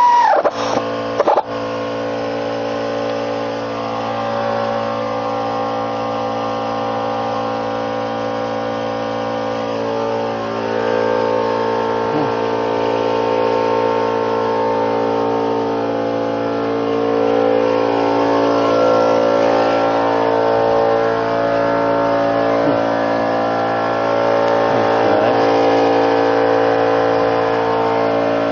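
An engine running steadily, with a falling tone and a couple of clicks in the first second or so.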